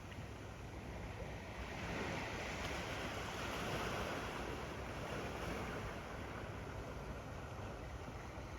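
Ocean waves lapping on a sandy beach: a steady wash of surf that swells a couple of seconds in and then eases, with a low rumble of wind on the microphone underneath.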